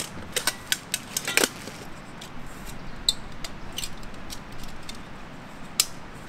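Metal camping cookware clicking and clinking as it is handled: a quick run of sharp clicks in the first second and a half, then a few scattered ticks, with one louder click near the end.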